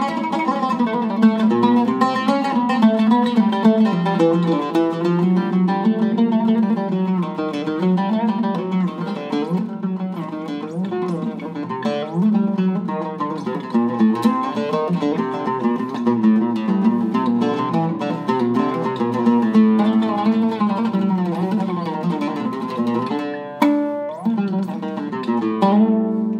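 Syrian oud with a cedar soundboard and walnut back played solo: a continuous improvised-sounding line of quickly changing plucked notes. About three-quarters of the way through comes one sharp, louder stroke, and the last notes are left to ring near the end.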